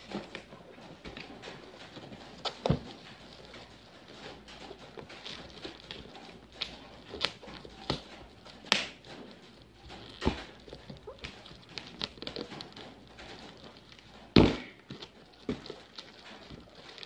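Black plastic packing being crinkled and torn off a boxed parcel by hand, with irregular sharp crackles and knocks of the box being handled. The loudest is a thump about fourteen seconds in.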